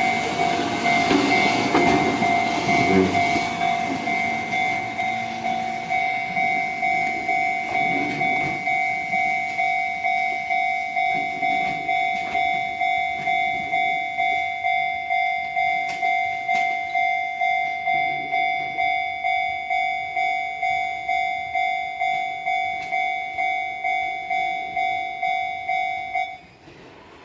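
Electric test train pulling away with wheel clatter and running noise over the first few seconds, while a railway level-crossing warning bell rings in even strokes, a little under two a second. The bell stops suddenly near the end.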